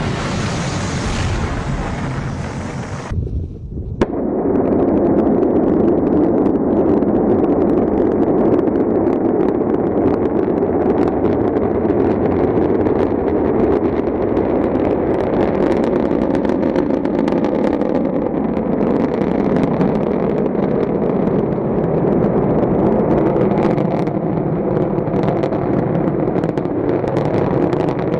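Rocket engine roar from launch footage: a loud, steady rumble full of crackle. There is a brief dip and a cut to a new shot about three to four seconds in, after which the roar carries on steadily.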